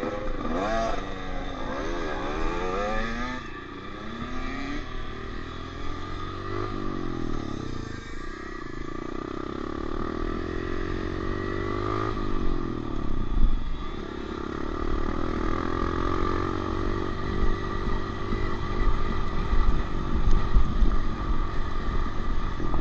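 Honda CRF125F single-cylinder four-stroke dirt bike engine under way: revving up and dropping back several times in the first few seconds as it pulls away and shifts, then running at a steadier pitch and getting louder toward the end.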